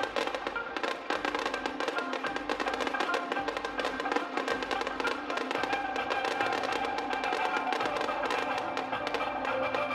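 Show music playing over a dense, continuous crackle of glittering firework stars bursting low over the water.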